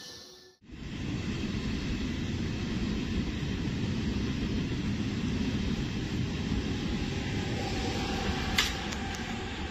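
Electric-hauled train of Casaralta double-deck carriages running past with a steady low rumble, starting about half a second in, with one sharp click near the end.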